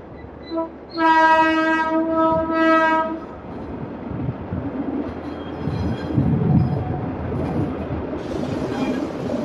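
Diesel switcher locomotive's air horn: a short toot, then a blast of about two seconds. Afterwards the rumble of the locomotive and hopper cars rolling past on the track.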